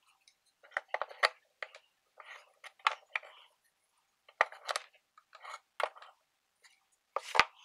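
Small metal parts of a clamp-on bench vise clicking and scraping as they are handled and fitted, in short irregular bursts with pauses between. A heavier knock near the end.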